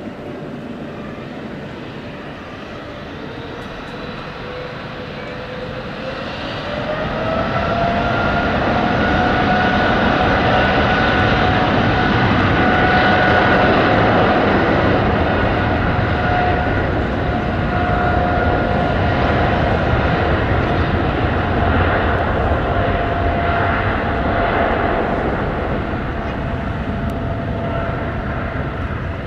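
Boeing 777F cargo jet's twin GE90 turbofans spooling up for takeoff: a whine rises in pitch and the engine noise grows over a few seconds, then holds steady at high power over a wide rumble.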